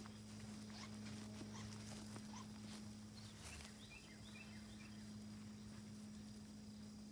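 Quiet ranch ambience: a steady low hum with scattered faint ticks, and a brief flurry of small high chirps about four seconds in.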